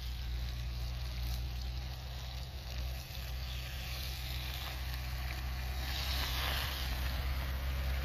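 Tomato-tinted liquid poured into a hot clay tagine of fish meatballs, hissing and sizzling most strongly from about four to seven seconds in, over a steady low rumble from the burner flame beneath.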